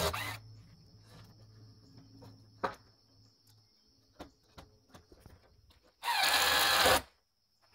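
Cordless drill driving screws into wood framing in two short runs: one ending just after the start and one of about a second about six seconds in, its pitch falling slightly; a few light knocks and clicks between.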